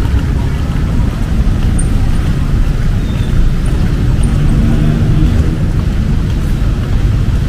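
City road traffic: a steady low rumble of passing cars, with one vehicle's engine coming up and passing about halfway through.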